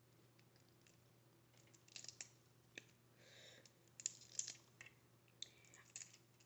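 Close-miked eating sounds, quiet overall: scattered wet mouth clicks and chewing smacks, with a short soft rustle a little past three seconds in.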